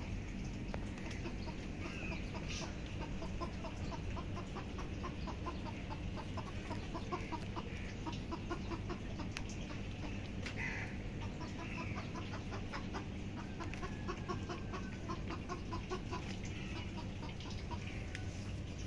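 Chickens clucking in runs of short, quick clucks, over a steady low hum.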